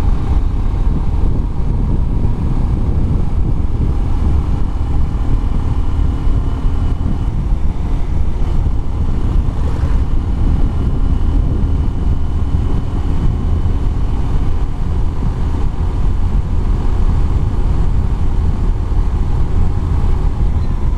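Bajaj Pulsar 125 BS6 single-cylinder engine and exhaust running at a steady cruise while the bike is ridden, mixed with wind buffeting on the microphone.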